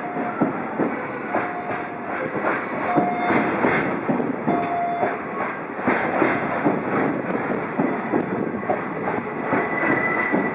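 Freight container wagons rolling past close by, their wheels clattering steadily over the rails. Several short wheel squeals sound in the first half, and a higher one comes near the end.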